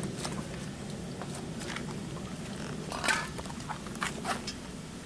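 Faint clinks and knocks of hand tools being moved about, with a slightly louder clatter about three seconds in, over a low steady hum.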